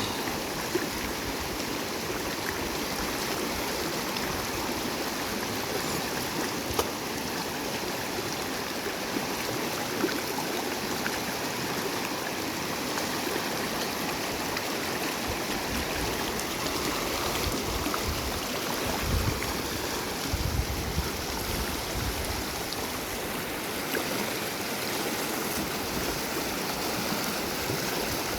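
Small river flowing, a steady rushing and burbling of water, with a few low thumps about two-thirds of the way through.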